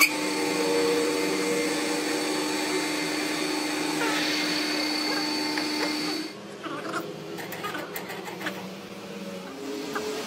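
A steady machine hum with several steady tones, starting abruptly and cutting off about six seconds in. After it come scattered light metallic clicks and knocks.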